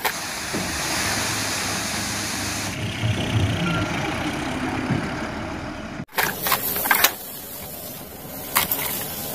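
Diesel dump truck engine running while the tipper bed is raised to unload its soil. About six seconds in the sound cuts off suddenly, followed by a few short knocks and clicks of plastic toys being handled on sand.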